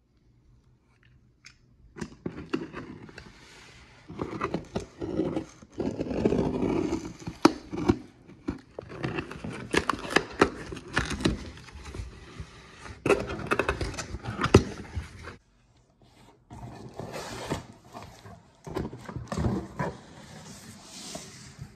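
Cardboard shipping box being cut and opened by hand: a box cutter slitting the packing tape, then scraping, tearing and rustling of tape and cardboard, with sharp clicks and knocks as the flaps are pulled back and a boxed item is lifted out. There is a short break about two-thirds of the way in.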